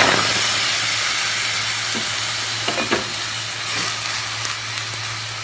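Fatty beef pieces dropped into a hot karahi with no oil hiss loudly at once, then settle into a steady sizzle that slowly eases. A few light knocks come about two and three seconds in.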